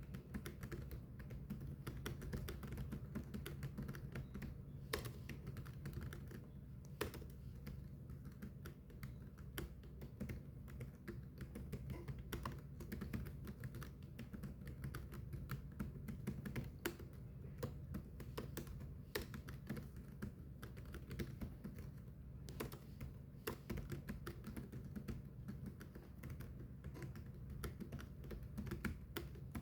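Continuous typing on a keyboard: a fast, irregular stream of keystroke clicks, with a few louder strikes now and then, over a low steady hum.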